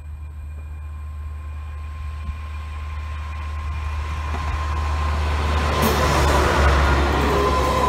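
VT2E two-car diesel railcar approaching and passing close by. Its engine and wheel-on-rail noise grow steadily louder and are loudest about six seconds in as it goes past.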